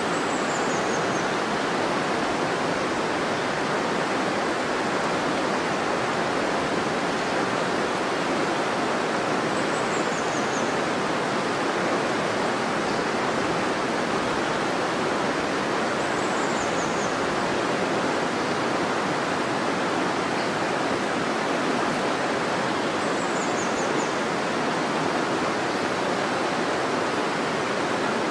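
River water rushing steadily over rocks. A faint, high, falling call, likely a small bird's, sounds four times.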